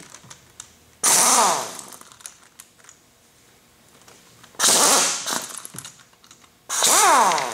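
Pneumatic impact wrench run in three short bursts, about a second in, at about four and a half seconds and near the end, loosening bolts on a steel injection mold. Each burst opens with a hiss of air and a whine that falls in pitch, with small clicks of handling between them.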